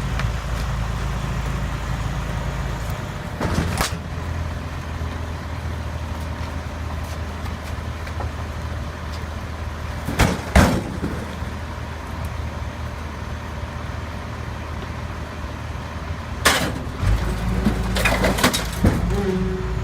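A large engine running steadily, its note stepping up about three seconds in and again near the end, with several loud bangs and crunches as a refrigerator and couch are crushed: about four seconds in, around ten seconds, and a cluster near the end.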